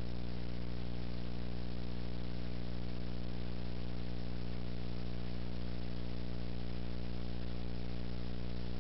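Steady electrical mains hum, a stack of even tones, over a constant hiss, with no other sound standing out.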